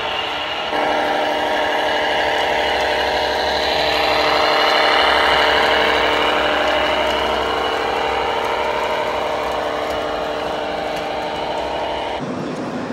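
Radio-controlled model tractor running with an engine sound, a steady drone that swells in the middle as it pulls its trailer train uphill and then settles. The sound changes abruptly near the end.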